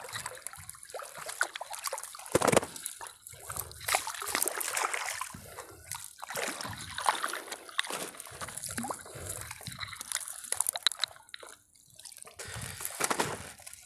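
Lake water splashing, sloshing and dripping as a fishing net is hauled by hand out of the water beside a small boat, with a netted fish splashing at the surface.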